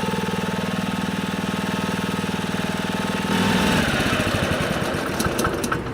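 Honda HR215 lawn mower engine running evenly, with no surging now that its clogged slow jet has been cleared. About three seconds in, the engine note changes and briefly gets louder.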